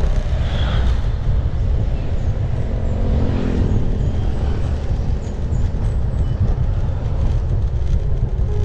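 Wind rumbling steadily on a GoPro Max action camera's microphone while riding a bicycle. A faint engine note comes through briefly about three seconds in.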